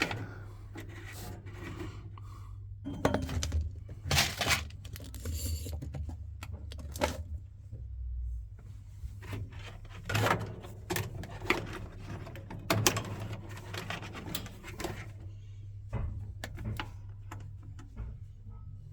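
Irregular clicks, taps and light clatter of hands working on a gas boiler's parts while its circuit board is being changed, over a steady low hum.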